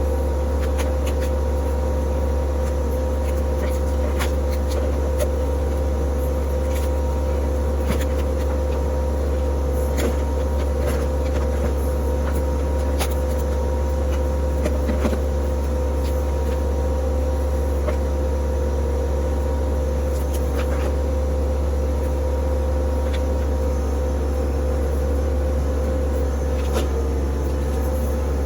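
TYM T264 compact tractor's diesel engine running at a steady speed, with a constant low drone and a few faint clicks and knocks scattered through.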